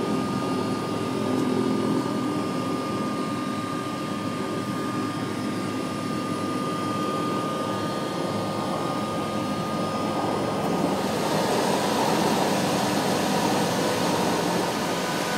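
Floatplane engine and propeller running steadily. About eleven seconds in the sound grows hissier and slightly louder.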